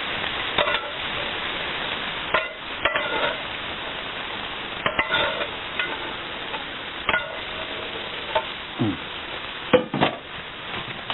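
Chicken pieces sizzling as they fry in a thick, dried-down masala in a pan, with a spoon stirring and knocking against the pan several times.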